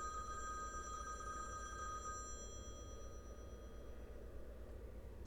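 Telephone ringing: a steady high ring that starts at once, fades out about halfway through and starts again at the end, over a low steady hum.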